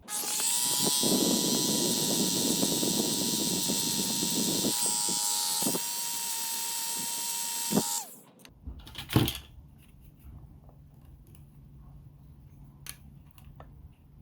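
Dremel rotary tool with a small sanding wheel running at a steady high whine, sanding down built-up Bondic UV-cured resin on a plastic eyeglass frame. The grinding is heaviest for the first five seconds or so. The tool shuts off and spins down about eight seconds in, followed by a sharp click and light handling.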